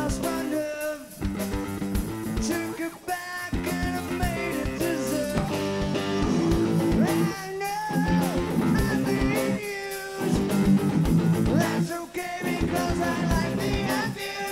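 Rock band playing live on electric guitars and drum kit, with short breaks in the playing every few seconds.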